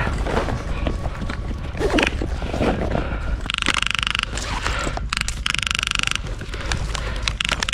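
Airsoft gun firing two short rapid-fire bursts, a fast mechanical rattle, about three and a half and five and a half seconds in, amid rustling and scattered knocks.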